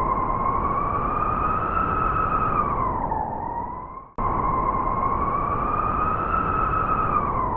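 Blizzard wind howling: a whistling tone that slowly rises and sinks over a steady rush of noise, broken by a sudden cut about four seconds in before it starts again.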